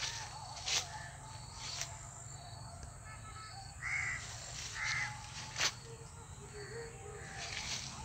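A crow caws twice, two short harsh calls about a second apart near the middle. Under it are faint high chirps of small birds or insects and a few sharp clicks.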